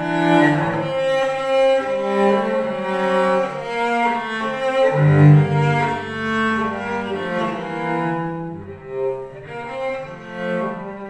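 Solo cello played with the bow: a melody of held notes that change every second or so, growing softer for a moment about eight seconds in.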